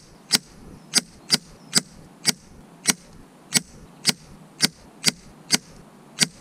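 .177 JSB Knockout air rifle slugs striking a paper target stapled to a wooden board: a sharp crack of impact about every half second, a dozen times over.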